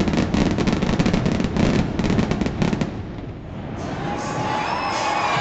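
Fireworks going off in a rapid, dense volley of bangs and crackles that stops about three seconds in. A crowd starts cheering and whistling near the end.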